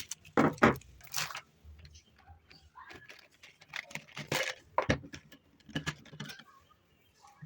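Close-up handling sounds: an irregular series of short clicks, knocks and rustles as small objects are picked up and set down.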